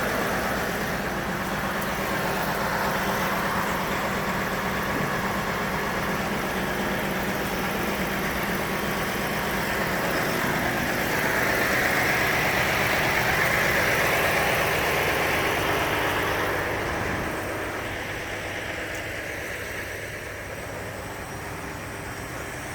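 Ram 2500 pickup truck idling: a steady engine hum with a hiss. The hiss grows louder in the middle and drops off about seventeen seconds in.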